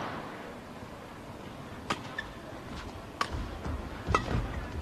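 Badminton rackets striking a shuttlecock during a rally: a few sharp hits about a second apart over faint hall ambience.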